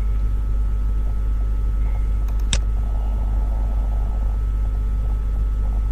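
A steady low hum with a thin, faint high tone over it, and a single sharp click about two and a half seconds in.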